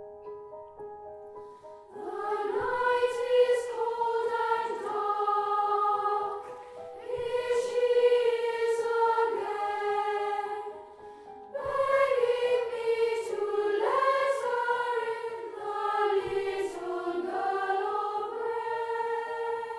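Boys' choir singing with grand piano accompaniment. The piano plays alone at first, then the voices come in about two seconds in, singing three phrases with short breaths between them.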